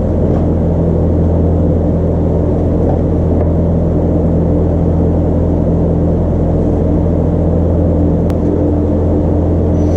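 Chinese diesel air heater running with a steady, loud hum.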